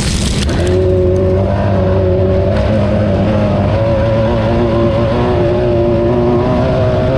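Class 9 off-road race car's engine running hard at steady, high revs while racing, its pitch holding with small steps up and down. A rough burst of rattling noise comes in the first half-second.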